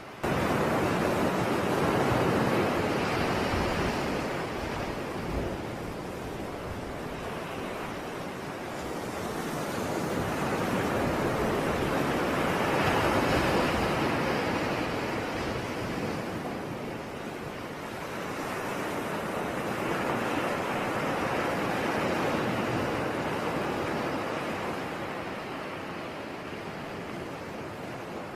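Rushing noise like sea surf, swelling and easing off in slow surges several seconds apart, starting abruptly.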